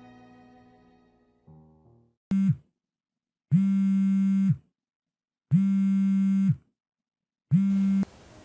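A smartphone vibrating on a hard stone floor with an incoming call: a short buzz, then buzzing pulses about a second long with a second's gap between them, each winding down in pitch as it stops. A fading music note is heard in the first second.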